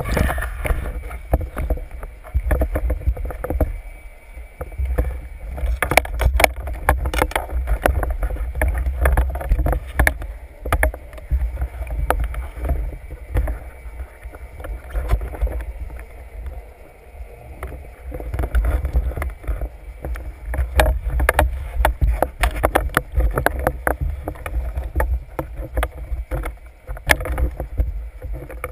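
Muffled underwater noise from a speargun-mounted camera: a steady low rumble of water moving against the housing, with irregular clicks and knocks as the freediver swims and handles the gun.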